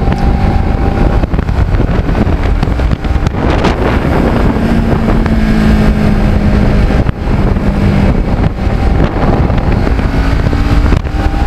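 Kawasaki Ninja 650R's parallel-twin engine running at road speed, its note holding steady and shifting slightly higher about four seconds in, under heavy wind rush.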